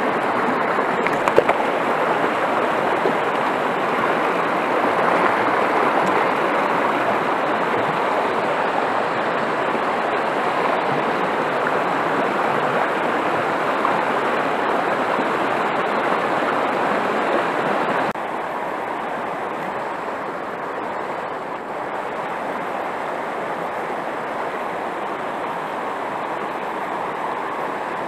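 Steady rush of fast river water over rocks. A brief click sounds near the start, and about two-thirds of the way through the rush drops suddenly to a somewhat quieter level.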